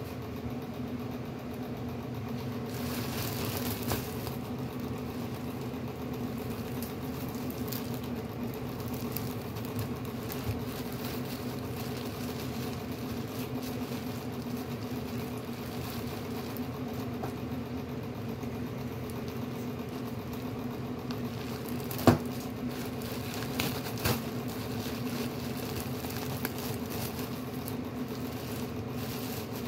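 A steady electrical hum from an appliance runs throughout, with rustling and crinkling of a plastic bag being handled and untied, and a single sharp click about three quarters of the way through.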